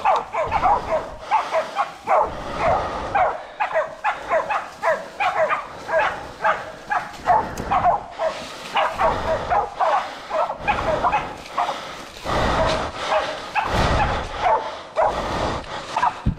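Pig-hunting dogs barking in quick, continuous bursts while bailing a boar.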